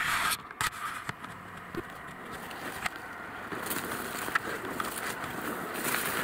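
Footsteps crunching through dry leaf litter, with brush and thin stems scraping past: a person walking steadily through woodland undergrowth.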